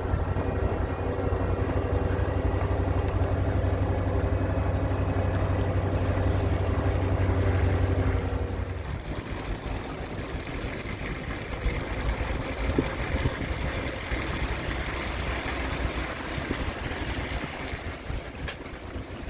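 Truck running on the road while towing a tiny house: a steady engine hum for the first eight seconds or so, then the hum drops away and rougher road noise carries on.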